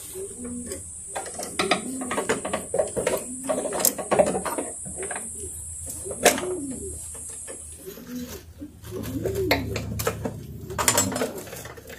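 A dove cooing over and over in low, arching calls, with sharp clicks and knocks of metal parts being handled in between.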